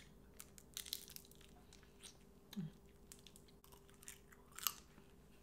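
Biting into and chewing crisp fried chicken feet, with scattered faint crunches that come in clusters. A short low hum is heard about halfway through.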